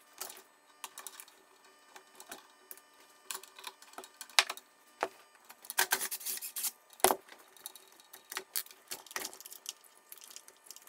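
Irregular clicks, taps and scrapes of a hand tool working on the plastic control head of a Minn Kota Riptide trolling motor as its manual speed-control parts are taken out, busiest in the middle.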